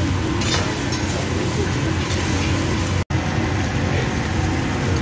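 Fried rice sizzling on a teppanyaki griddle while metal spatulas scrape and chop it, over a steady low rumble. The sound drops out for an instant about three seconds in.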